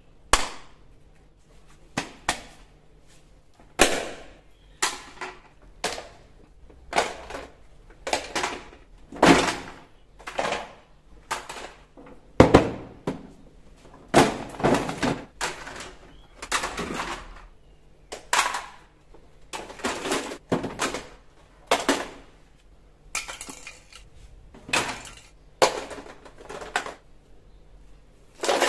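Plastic toy guns and toys being set down and knocked together on a tile floor: a clatter or knock about once a second, some trailing into short rattles.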